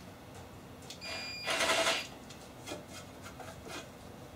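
Power drill with a large bit run in one short burst of about a second, cutting a shallow countersink into a wooden board, followed by a few light ticks.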